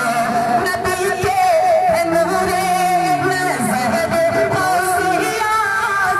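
Male voice singing a naat, an Urdu devotional song in praise of the Prophet, amplified through a microphone, in long drawn-out melodic phrases over a steady sustained tone.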